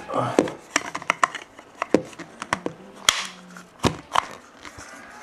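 Irregular clicks, taps and light rustling of a plastic refrigerator water filter cartridge and its parts being handled, with two sharper knocks about three and four seconds in.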